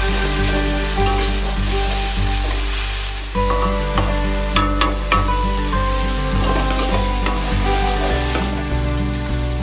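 Silkworm pupae and roselle leaves sizzling in a wok as a metal spatula stirs and scrapes them, with a few sharp clinks of the spatula against the pan about halfway through. Background music plays underneath.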